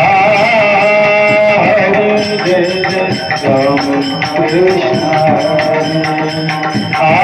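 Devotional bhajan music: pakhawaj drum strokes under a sustained, wavering melodic line.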